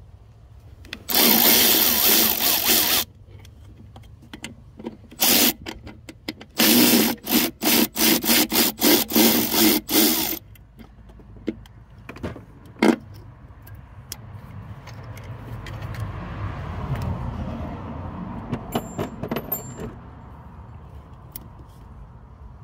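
Red cordless ratchet on a deep 10 mm socket backing out the EGR valve's bolts. It runs for about two seconds, then gives a string of about ten short trigger bursts. After that come a few quieter clicks of the valve being handled.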